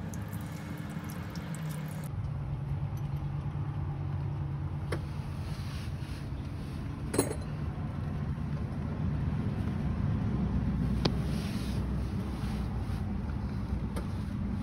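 Steady low running hum from the 2004 Dodge Ram Cummins truck as it sits with its new lift pump fitted, with a few sharp clicks, the loudest about seven seconds in. The hum shifts in pitch at a cut about two seconds in.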